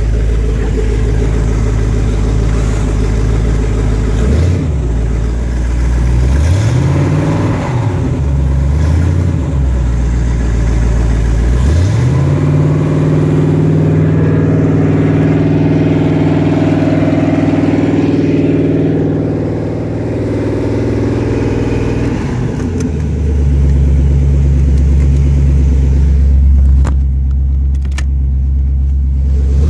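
Carrera 238 Classic boat's engine being revved: quick blips about 4 and 7 seconds in, then held at higher revs from about 12 to 20 seconds before dropping back to a deep, steady idle.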